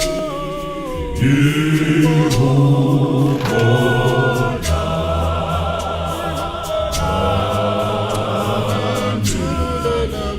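Background music: choral singing with sustained, gliding vocal lines.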